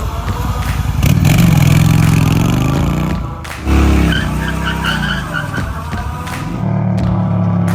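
A vehicle engine running and revving, its pitch rising and falling, with a sudden louder surge about three and a half seconds in.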